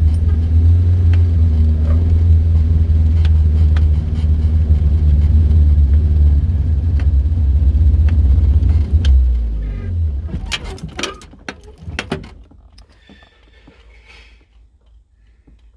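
Car driving with a loud, steady low rumble that drops in pitch and dies away about nine to ten seconds in as it slows to a stop, followed by a few sharp knocks. Something in the car's running gear is broken.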